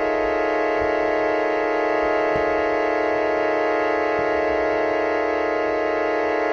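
Experimental music: a steady, dense drone of many held tones, with faint soft knocks underneath.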